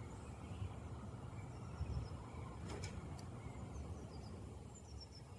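Faint wild birds calling, a few short high chirps, over a steady low outdoor rumble, with one sharp click about three seconds in.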